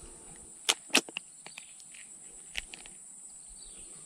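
A few sharp clicks and taps from handling fishing tackle while unhooking a small snakehead from a soft-frog lure, the two loudest about a second in, over a steady high hiss.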